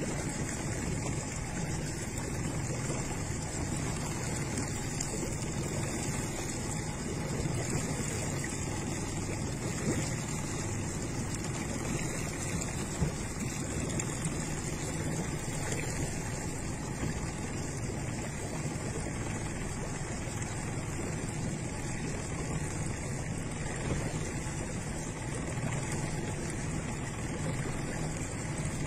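Motorboat engine running steadily as the boat cruises, with water rushing past the hull.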